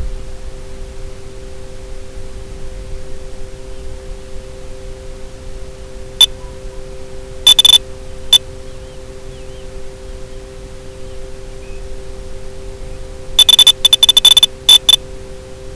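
Steady hiss with a constant two-note hum on the FPV video link's audio, broken by short, loud, high electronic beeps: one about six seconds in, a quick few just before eight seconds, and a rapid string of them near the end.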